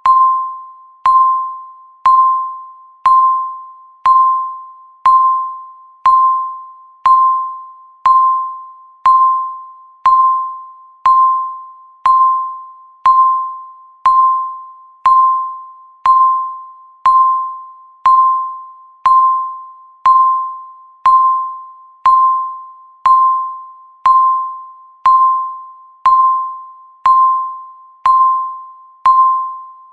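A countdown timer's electronic tick: one short bell-like beep every second, each sharp at the start and dying away quickly, in a steady even rhythm.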